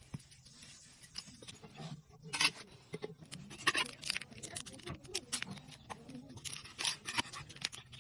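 Irregular sharp clicks and crackles of hands working in the kitchen during noodle preparation, coming in clusters, with the loudest runs about two and a half, four and seven seconds in.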